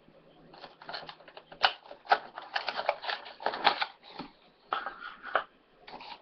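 Toy box packaging being handled and rummaged: a string of irregular sharp clicks, taps and crinkles.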